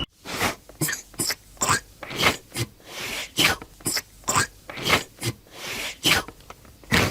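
An animal making a rapid series of short, sharp sounds, about two a second.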